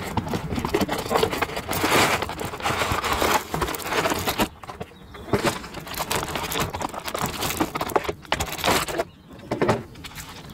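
Packaging being handled close to the microphone: a cardboard sleeve slid off and a clear plastic macaron tray and lid crackling and clicking as they are taken apart, in uneven bursts.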